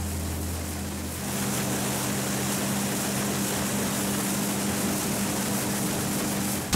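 Motorboat engine running steadily under way, a low hum over the hiss of wind and rushing water from the wake. The sound changes character about a second in.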